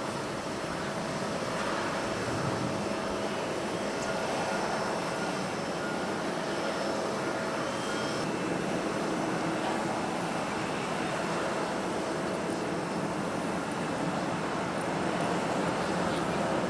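Jet airliner engines running at a distance: a steady rush with a faint whine in it, growing a little louder near the end. Strong wind buffets the microphone.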